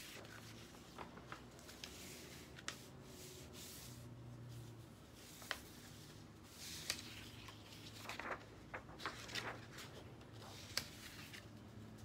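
Large sheets of drawing paper being lifted, flipped and slid over one another: quiet, intermittent rustles, taps and scrapes, busiest in the second half.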